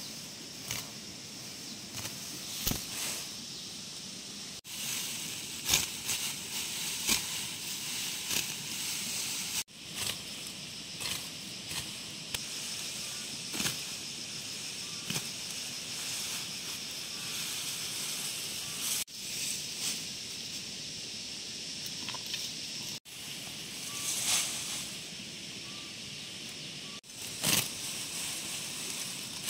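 Hand sickle slicing through tall grass stalks in short, irregular strokes, each a sharp swish or snap, with the rustle and crackle of grass being gathered and pulled.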